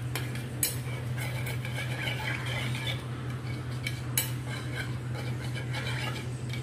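A metal spoon stirring and scraping a watery spice paste in a stainless steel bowl, with sharp clinks against the bowl about half a second in and again about four seconds in. A steady low hum runs underneath.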